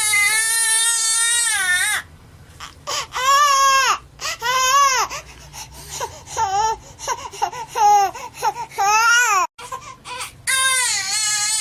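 Infant crying: a long held wail, then a short gap and a series of shorter rising-and-falling wails between breaths, then another long wail near the end.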